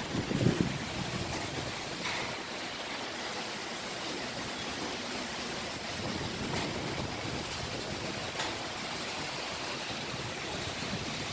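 Typhoon-force wind blowing steadily, with a louder gust about half a second in.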